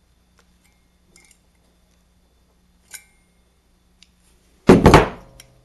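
Small metal clicks from locking pliers working a thin steel throttle linkage rod, then a loud metallic clatter of several quick strikes a little before the end.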